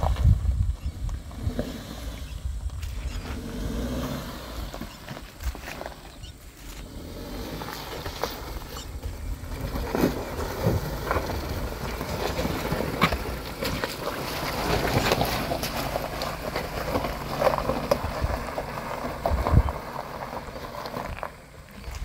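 Mahindra Thar SUV driving slowly over a rough, stony track, its engine running. Through the second half, loose stones crunch and knock under the tyres.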